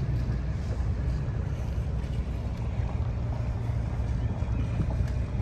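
Steady low rumble of an idling boat engine, with some wind on the microphone.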